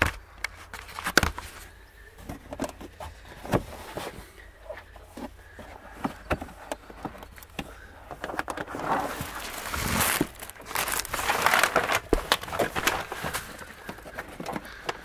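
Carpeted car boot lining and plastic side trim being pulled and handled by hand: rustling and scraping with scattered clicks and knocks, busiest about two-thirds of the way through.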